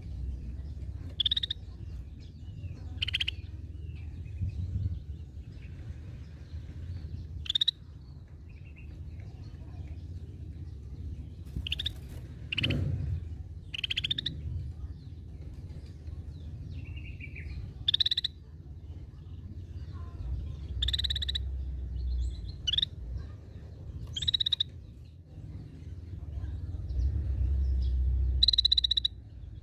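Scaly-breasted bulbul (cucak bersisik) giving about a dozen short, buzzy, high call notes at irregular intervals. A steady low rumble runs underneath.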